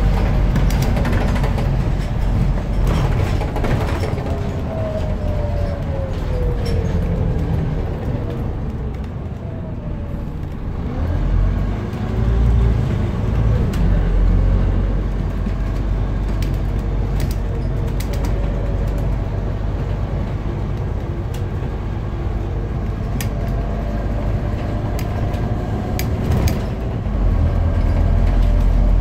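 Scania CN230UB single-decker bus heard from inside the passenger saloon while under way: the diesel engine and driveline drone, with the whine sliding down in pitch over the first several seconds as the bus eases off. About ten seconds in the pitch rises again as it pulls on, and it swells louder near the end. Short rattles and clicks from the bodywork come through throughout.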